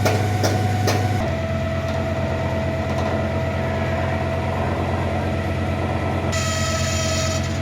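Heavy truck diesel engine running steadily with a low hum and a steady whine above it. Its note shifts about a second in.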